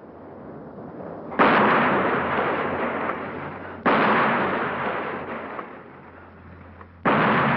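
Three artillery shell blasts, about two and a half seconds apart: one about a second and a half in, one near four seconds, and one near the end. Each starts sharply and fades away over a couple of seconds.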